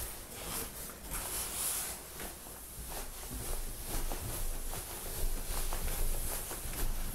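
Soft footsteps going down a flight of stairs, with camera-handling rustle and a low rumble underneath.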